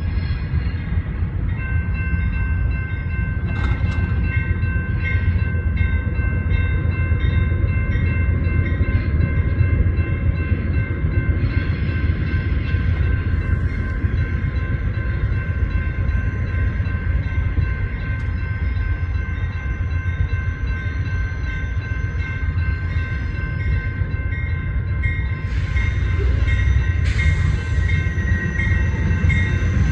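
A train running past with a steady low rumble. From about two seconds in, a steady high-pitched whine rides on top and holds to the end.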